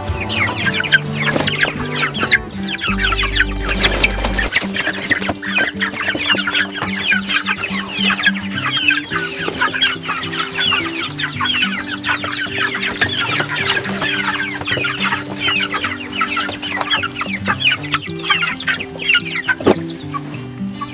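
A coop of young broiler chickens calling constantly: many short, high-pitched peeps overlapping.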